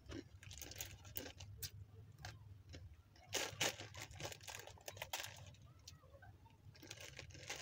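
Faint crunching and crinkling as pieces of dry, uncooked Indomie instant noodles are pulled from their plastic packet and chewed, in scattered crisp clicks with a brief louder flurry about halfway in.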